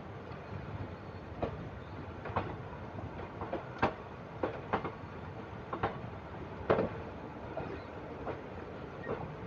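Passenger train moving slowly out of a station: steady running rumble with wheels clacking irregularly over the rail joints, about seven sharp clacks.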